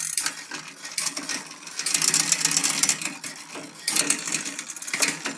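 Bicycle drivetrain clicking and rattling as the Ride1Up Cafe Cruiser's crank is turned by hand in a repair stand: the chain runs through the rear derailleur and over the cassette while the shifting is being tuned. The clatter gets louder about two seconds in and again near four seconds.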